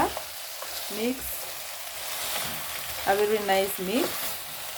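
Potatoes, carrots, tomatoes and onions sizzling in hot oil in a pot while being stirred together. There is a brief voice sound about three seconds in.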